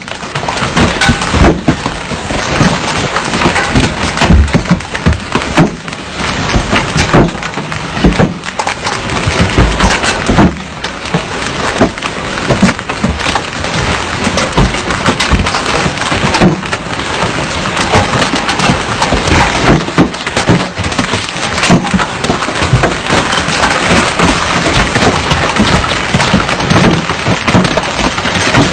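Heavy downpour of large raindrops striking hard, a dense, unbroken clatter of impacts over the hiss of the rain.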